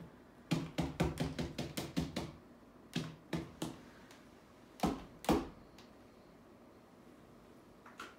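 Quick taps and knocks of a painting tool dabbing paint onto the wall: a fast run of about a dozen taps, three more, then two louder knocks about five seconds in.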